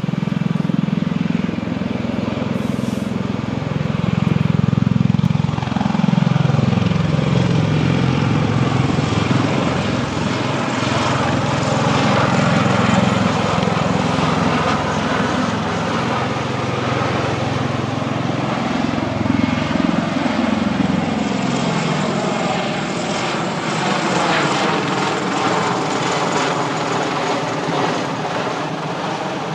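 V-22 Osprey tiltrotor flying overhead with its nacelles tilted up: a loud, steady rotor and engine drone whose low pitch slides up and down as it passes and banks. It is loudest about five seconds in.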